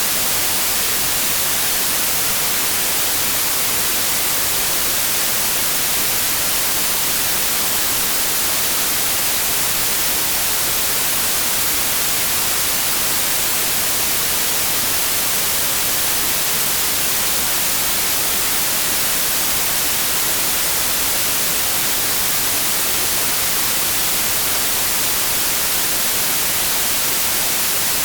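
Steady white noise: an even, unbroken hiss, strongest in the treble, with no change in level.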